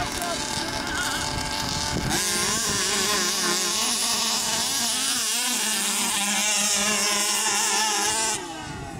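Two 29–30cc two-stroke petrol engines of HPI Baja RC buggies running, jumping to full-throttle revving about two seconds in as the buggies launch and climb, their pitch wavering up and down. The loud revving drops away suddenly near the end.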